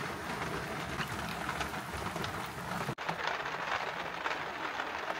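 Steady rain pattering, heard from inside a campervan, with many small drops ticking on the van. There is a sudden short break in the sound about three seconds in.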